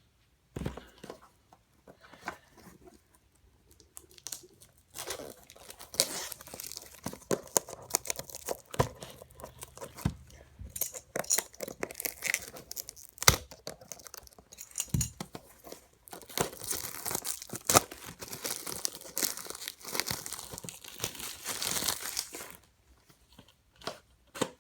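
Plastic shrink wrap being torn and crinkled off a sealed VHS cassette case, in irregular bursts with sharp clicks and knocks of the plastic case.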